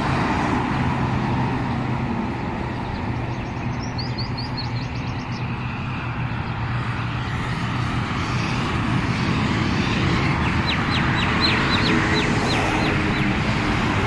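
Small birds chirping over a steady background of city traffic: a rapid run of high chirps about four seconds in, and a longer run of chirps from about ten seconds in.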